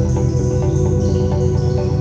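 Background music: a steady electronic, ambient-style track with sustained tones and an even pulse of notes.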